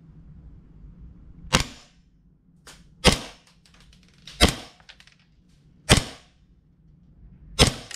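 Gas-powered airsoft 1911 pistol firing five single shots through a chronograph, each a sharp crack, about a second and a half apart.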